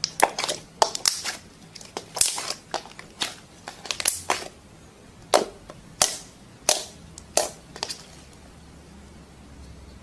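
Slime being squeezed and pressed by hand, giving an irregular run of sharp pops and clicks that stops about eight seconds in.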